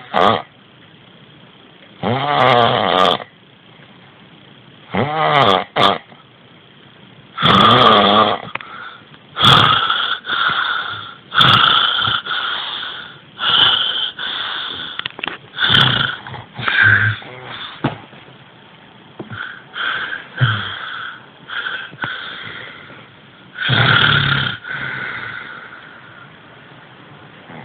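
A person snoring: three long rasping snores about every two and a half seconds, each rising and then falling in pitch, then a quicker run of shorter snores until near the end.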